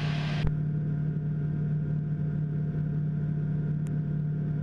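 Steady drone of the TL-3000 Sirius's Rotax 912 flat-four engine and propeller at cruise power, heard inside the cockpit. There is a click about half a second in, after which the high hiss drops away.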